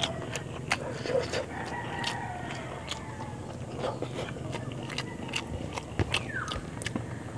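A rooster crows once, a drawn-out call starting about a second and a half in, over close chewing and small clicking mouth sounds of someone eating rice and fish by hand.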